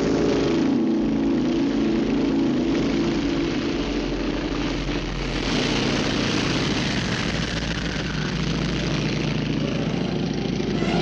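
Spirit of St. Louis's Wright Whirlwind nine-cylinder radial engine running at full throttle for takeoff, its note wavering in the first couple of seconds. A rising rush of engine and air noise comes in about five seconds in as the plane climbs away.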